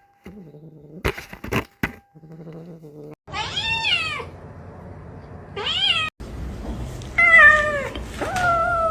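Domestic cat meowing four times, the first meow the longest, after a few faint clicks.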